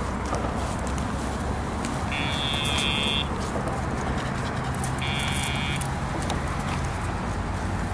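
Two electronic buzzes from the trainer's sound box, each one marking a press of the Dogtra e-collar's pager (the vibration cue for a deaf dog). The first lasts about a second and starts about two seconds in; the second is shorter and comes about five seconds in, over a steady low background rumble.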